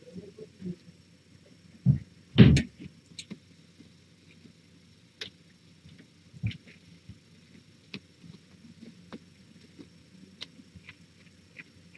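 A few dull thumps and knocks, the loudest pair about two seconds in and another about six and a half seconds in, with scattered faint clicks between.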